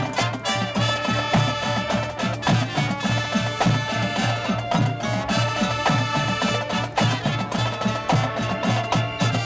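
High school marching band playing its field show: brass holding sustained chords over drums keeping a steady beat.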